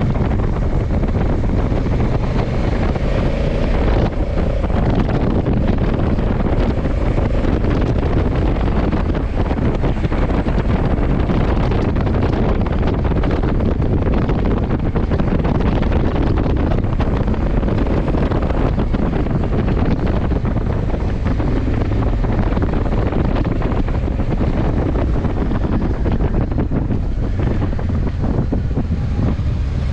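Wind buffeting the microphone of a motorcycle-mounted action camera at riding speed, over the steady low rumble of a Honda CRF1100 Africa Twin's parallel-twin engine running under way.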